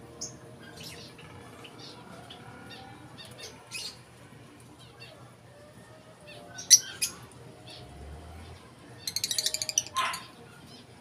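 Small birds chirping with scattered short calls, one sharp loud chirp about two-thirds of the way in, and a quick chattering run of rapid notes near the end.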